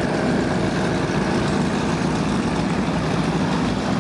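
Motorboat engine idling steadily at low speed, a low, even engine note with no change in pitch.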